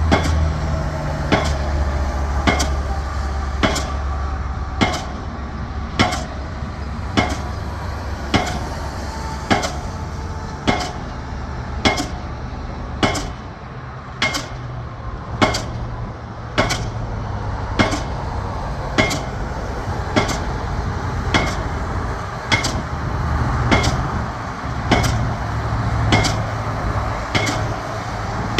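Pile hammer driving a steel H-pile: sharp metallic blows about once every 1.2 seconds, each ringing briefly, over a steady low drone.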